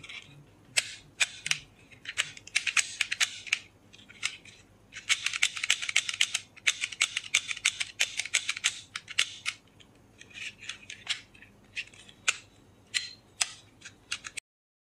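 Plastic toy revolver clicking and rattling as it is handled, its hammer cocked and its mechanism worked: many sharp plastic clicks, with a dense run of rapid clicking from about five to nine and a half seconds in.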